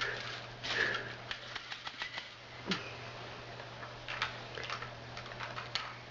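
Light, irregular clicks and taps of a toy backhoe scooping Cheerios and dropping them into a toy dump truck.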